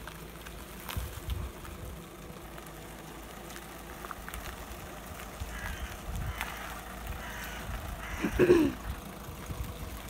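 Peugeot estate car towing a caravan slowly downhill on a wet lane: a low engine and tyre rumble mixed with wind on the microphone. About eight and a half seconds in, one short, loud call falling in pitch.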